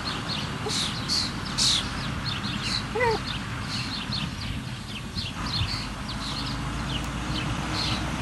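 Small birds chirping repeatedly in short high notes, with one brief pitched whine-like animal call about three seconds in, over a steady low outdoor background.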